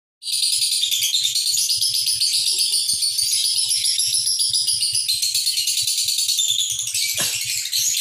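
Masked lovebird giving a long, unbroken, high-pitched chattering trill of rapid notes, the continuous song that Indonesian keepers call ngekek and prize in a lovebird. A short knock sounds about seven seconds in.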